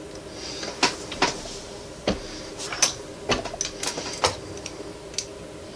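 About eight sharp metallic clicks and light knocks, irregularly spaced, as a brass cartridge case is handled in the shell holder of a MEC Marksman single-stage reloading press to seat a bullet. A steady low hum runs underneath.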